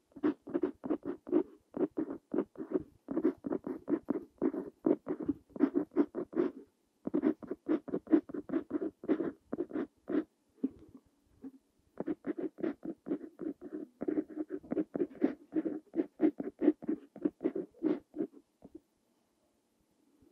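Parker Jotter fountain pen's steel nib scratching across paper as Korean characters are handwritten, in quick short strokes. The strokes pause for about a second and a half around eleven seconds in, then stop shortly before the end.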